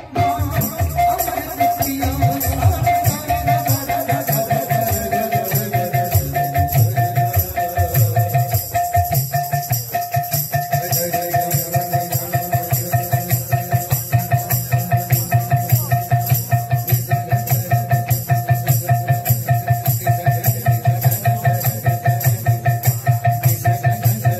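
Kirtan instrumental music: small hand cymbals and a drum keep a fast, even beat of about four strokes a second over one held note. The beat settles into a steadier pulse about ten seconds in.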